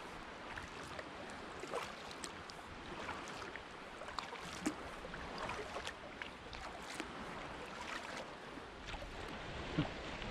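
Lake water lapping and splashing against the hull of a kayak under way: a steady wash dotted with many small splashes and drips.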